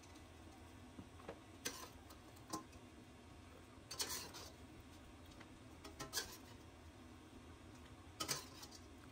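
A metal spoon knocking and scraping against a stainless steel pot while cooked goat meat is scooped out of its broth. Several faint, irregularly spaced clicks and taps, a couple of them with a short scrape.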